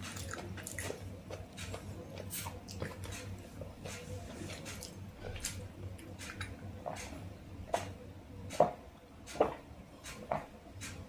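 A person drinking water from a glass, with about four gulps under a second apart in the second half. Before that come small wet mouth and finger clicks.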